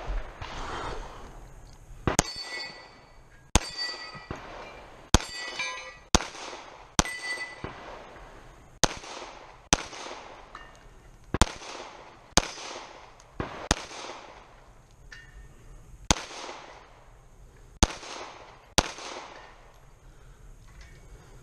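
A pistol is fired in a slow string of about fifteen shots, roughly a second apart. After several of the early shots comes the ring of steel targets being hit.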